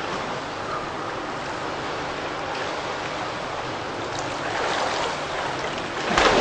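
Water splashing and lapping in an indoor swimming pool as a swimmer swims, a steady wash that grows louder in the last two seconds as the swimmer comes close.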